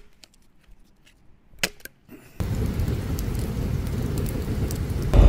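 A few faint sharp clicks, then about halfway through a wood campfire burning: a steady rush of flames with crackling and popping from the sticks.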